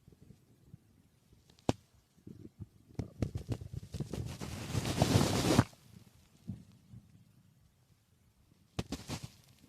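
Human stomach gurgling, recorded close: a run of crackling, bubbling pops that thickens into a loud gurgle and stops suddenly, with a shorter crackle near the end.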